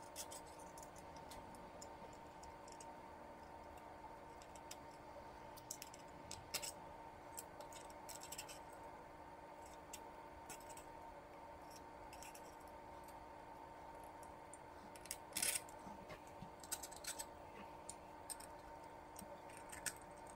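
Scattered small clicks and scrapes of plastic and metal parts handled and pressed together while the diode laser module's housing is reassembled, with a louder cluster of clicks about fifteen seconds in, over a faint steady hum.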